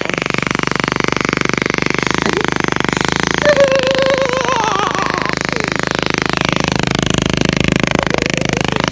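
Motorcycle engine running steadily with a rapid, even chug of firing pulses as it is ridden through floodwater.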